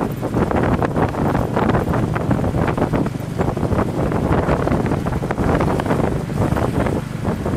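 Wind buffeting the microphone from a moving vehicle: a loud, uneven rushing that surges many times a second, over the vehicle's low road rumble.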